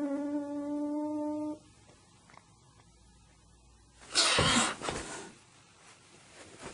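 Scottish Fold cat's long, steady yowl, rising in pitch as it begins, then breaking off about a second and a half in. About four seconds in, a loud, breathy rush of noise lasts about a second.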